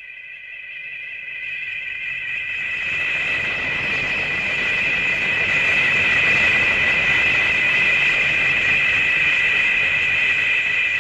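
Gamera's kaiju roar: a long, high-pitched screech of several shrill tones at once over a rough, rasping rumble. It swells up over the first few seconds and then holds loud and steady.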